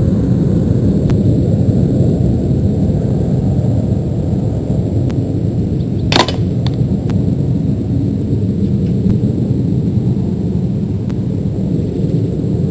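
A single sharp shot from a Slavia 630 spring-piston air rifle about halfway through, over a steady low rumble.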